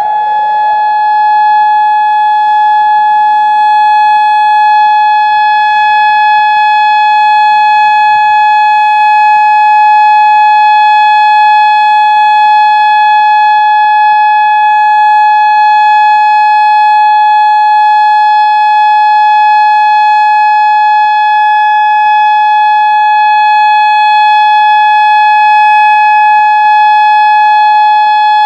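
Whelen 2016 single-tone civil defense siren sounding a test, holding one loud, steady tone. The pitch settles right at the start, having just finished rising.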